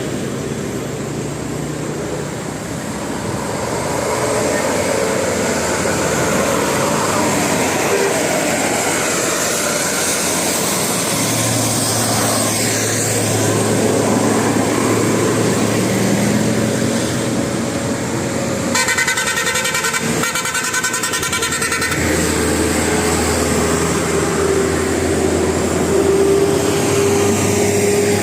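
Bus air horns of the Basuri multi-tone type, mounted on the roof, sounding over street traffic noise. About two-thirds of the way through comes a few seconds of rapid pulsing horn tones, and a long held horn tone runs near the end.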